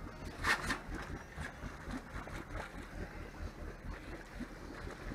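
Low steady rumble of a fishing boat's engine with water noise along the hull, and a brief louder rush of noise about half a second in.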